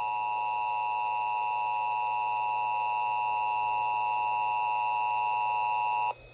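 Emergency Alert System attention signal: the steady two-tone alert tone (853 and 960 Hz together) that announces an emergency broadcast message, cutting off abruptly about six seconds in.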